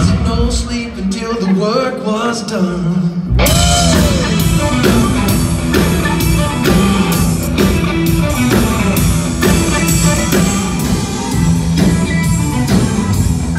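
Live rock band playing: a man singing over electric guitar, bass, keyboard and drums. About three seconds in the full band comes in louder with a steady drum beat.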